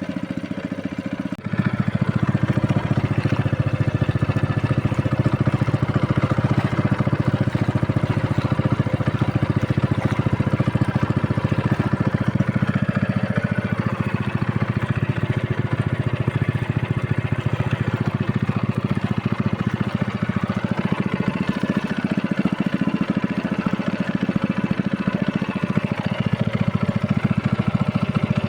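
Boat motor running steadily, getting louder about a second and a half in as it is throttled up, then holding a constant speed.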